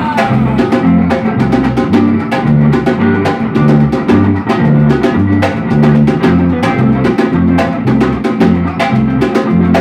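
Samba-reggae band music without singing: drums and percussion over a repeating bass line, with guitar.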